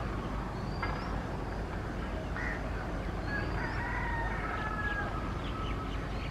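A rooster crowing in one long drawn-out call from about halfway through, with a few short bird chirps, over a low steady rumble from the distant approaching diesel locomotive.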